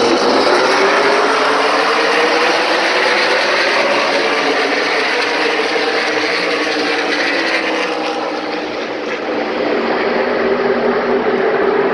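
A pack of NASCAR stock cars' V8 engines running at full throttle as the field takes the green flag and races past. It is loud and continuous, with the engine pitch slowly bending, and it dips briefly about nine seconds in before building again.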